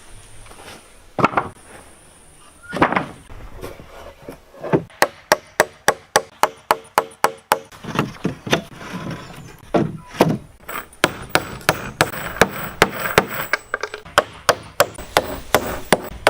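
A hand tool striking wood in quick, even blows, about three a second. There are two runs of strikes, from about five seconds in and from about eleven seconds in, after a couple of heavier knocks of wood near the start.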